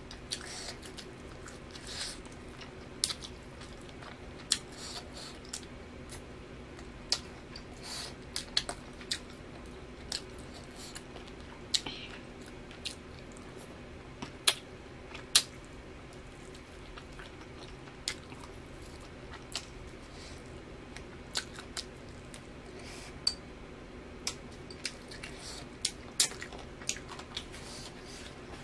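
Close-miked eating sounds: chewing and biting pan-grilled chicken, with many scattered sharp wet smacks and clicks of mouth and fingers. A faint steady hum runs underneath.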